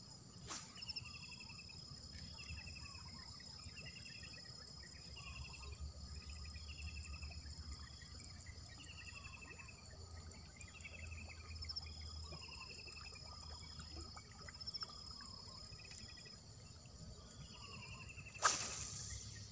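Insects calling in marsh grass: a steady high buzz broken by short gaps, and a short pulsed chirp repeating about once a second, over a low rumble. A sharp click comes about half a second in, and a brief loud rush of noise near the end.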